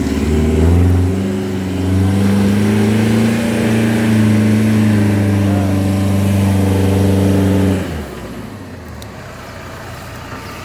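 Toyota Hilux pickup engine revving hard and held high for about eight seconds while driven off-road, then dropping suddenly to a low idle.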